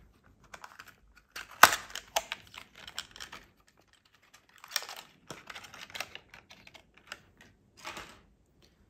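Plastic lure packaging being handled and opened by hand: irregular clicks, taps and crinkling rustles, with louder bursts about a second and a half in, near five seconds and near eight seconds.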